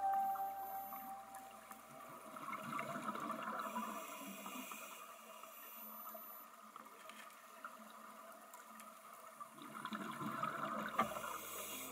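Scuba divers' exhaled air bubbles gurgling underwater, swelling twice: about three seconds in and again near the end, with each exhalation through the regulator.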